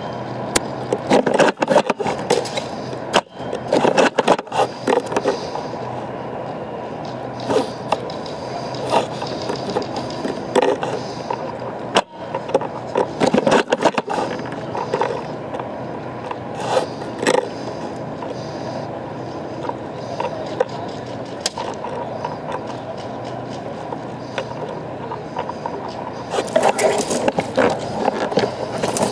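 Scraping, rubbing and knocking handling noise on a rifle-mounted scope camera, in irregular bursts with scattered sharp clicks.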